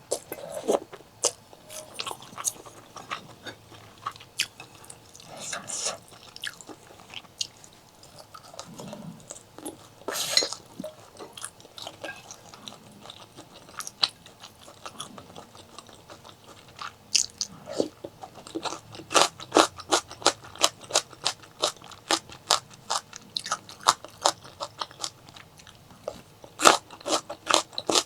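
Close-miked eating sounds: a person biting and chewing food, a run of sharp mouth clicks that come thick and fast in the second half.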